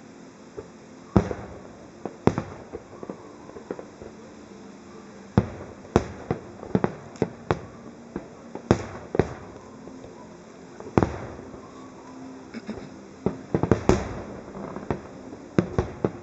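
Aerial firework shells bursting in an irregular series of sharp bangs, some with a short echoing tail, coming in quick clusters of several at a time.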